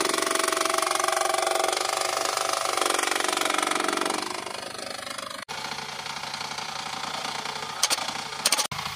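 Mini excavator's engine and hydraulics running loudly with a steady pitched note as it drives. After a cut the engine runs more quietly, and near the end there are a few sharp knocks as the hydraulic breaker strikes a rock.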